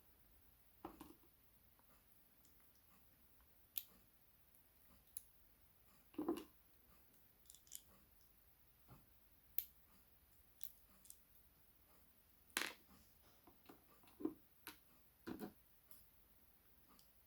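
Scattered small clicks and taps from a Sargent lock cylinder and its pins being handled while the lock is taken apart, about a dozen at irregular intervals, the loudest about six seconds and twelve and a half seconds in.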